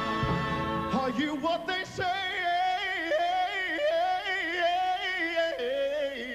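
A male singer holding long, high notes with a wide vibrato over quiet accompaniment.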